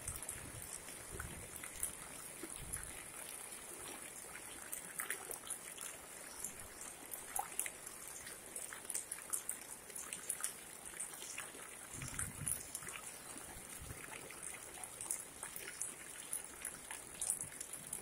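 Light rain falling on a flooded street, with many scattered drops ticking and pattering over a steady hiss of water.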